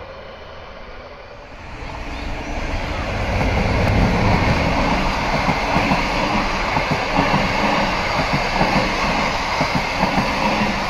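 Passenger train coaches rolling past, their wheels rumbling and clattering on the rails. The sound is quieter for the first couple of seconds, builds, then holds loud and steady.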